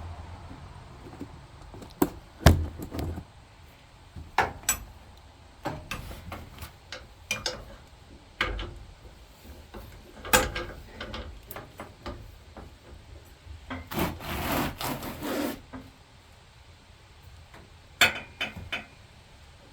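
Socket and breaker bar worked on the mower's idler pulley bolts: scattered metal clanks and knocks as the tool is fitted and shifted, with a longer stretch of rubbing, scraping noise a little past the middle.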